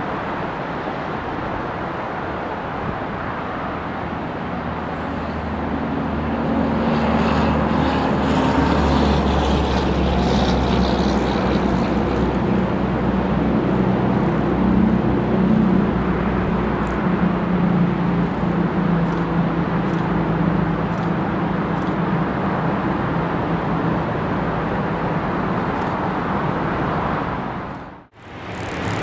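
Narrow-gauge 2-6-2 steam locomotive and its train running, a steady mechanical noise that grows louder about six seconds in. The sound cuts out briefly near the end.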